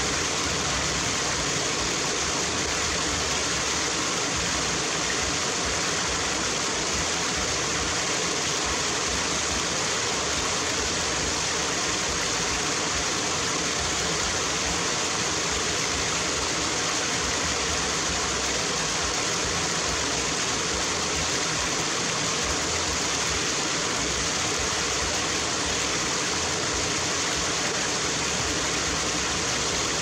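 Small waterfall spilling over rocks into a pool: a steady, even rush of falling water.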